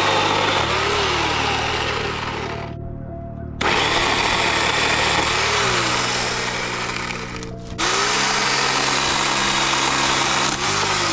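Greenworks electric chainsaw cutting through small ice-storm branches, its chain whining as it bites into wood in three runs with brief breaks about three and seven and a half seconds in.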